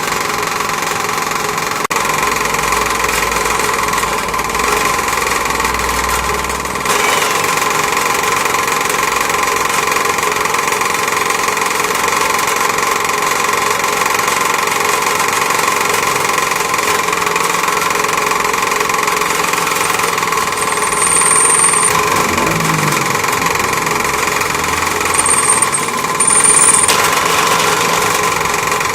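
Homemade lathe driven by an electric motor, running steadily with a constant whine and rattle. Brief high-pitched squeals come in near the end.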